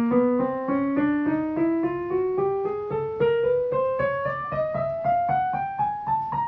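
Piano notes played one at a time in a steadily rising scale, about three notes a second, stepping up through the soprano range from A4 toward C6.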